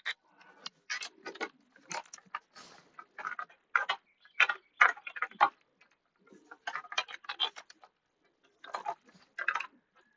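Irregular clicks and clinks of small metal hardware and hand tools being handled, in quick clusters with short pauses between them.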